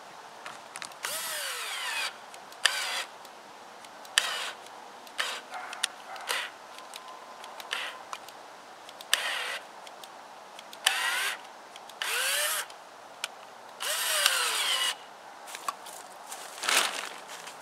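Power drill driving screws through plastic sheeting into a log, run in about a dozen short bursts with the motor whining up and down in speed each time.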